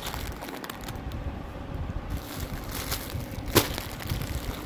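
Clear plastic garment packaging rustling and crinkling as packed suits are handled, with one sharp click about three and a half seconds in.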